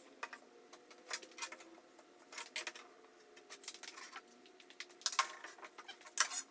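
Scattered sharp clicks and taps at an irregular pace from handling a straight edge and marking tools on a plywood sheet, with no saw running.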